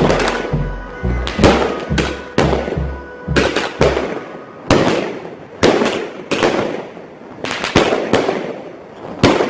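A 120-shot aerial fireworks cake firing shot after shot: about fifteen sharp bangs, each with a trailing echo, coming every half second to a second.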